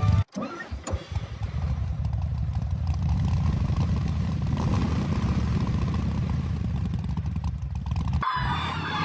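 A vehicle engine starting: a few sputters about half a second in, then it catches and runs steadily at a low, even pitch. Near the end it cuts off abruptly.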